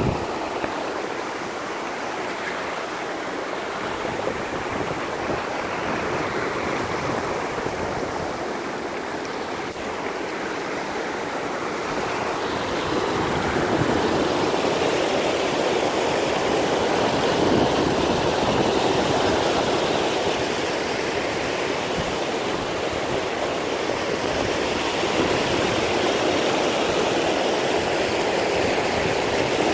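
Alpine mountain river rushing and splashing over boulders and stones in a steady noise, growing louder about twelve seconds in.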